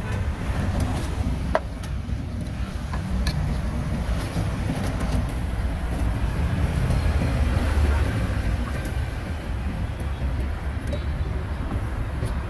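Street traffic noise: a steady low rumble of passing vehicles, with a few faint clicks.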